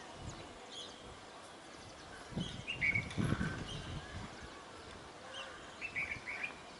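Asian pied starling (pied myna) calling in short chirps and whistles, in one bunch about three seconds in and another near the end, with a few low thumps under the first bunch.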